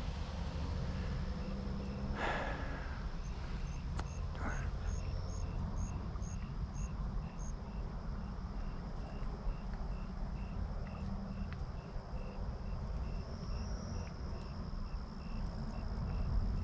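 Crickets chirping in an even rhythm, about two chirps a second, with a second, higher-pitched chirper joining for a few seconds, over a low steady rumble.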